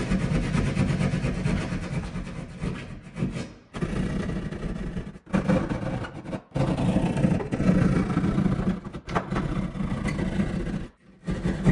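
A saw cutting through drywall, rasping in long runs. The cutting stops briefly about 4, 5, 6½ and 11 seconds in.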